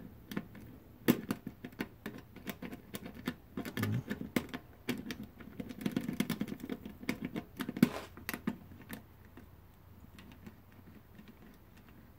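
A small metal tool probing inside the keyhole of a toolbox lock, making irregular light clicks and scratches that thin out near the end.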